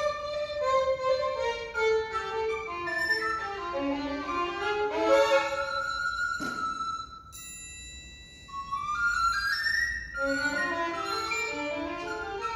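Live chamber music for violin, recorder and percussion, the violin leading with moving melodic lines. About six and a half seconds in a single sharp percussion strike leaves a ringing tone through a quieter pause, then a rising run of notes brings the ensemble back in.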